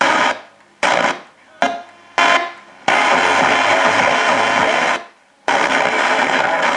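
FM radio being tuned across the band, played through a JVC JA-S44 amplifier and its speakers. Short snatches of station audio and static are cut off abruptly as the tuner mutes between stations, followed by two longer stretches of hissy reception with a brief dropout between them.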